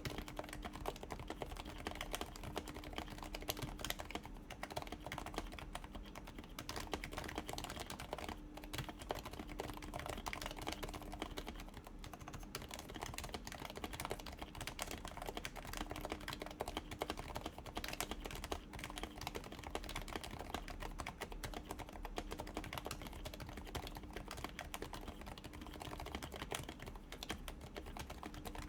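Continuous typing on a Happy Hacking Keyboard Professional's aged 45 g Topre switches, lubed and silenced with Silence-X, with URSA PBT doubleshot keycaps: a steady stream of soft key strikes.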